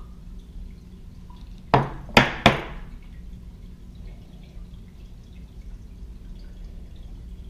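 Three sharp clacks in quick succession, about two seconds in, as the metal soft-plastic injection mold is opened and handled on a wooden table, followed by quieter handling under a steady low hum.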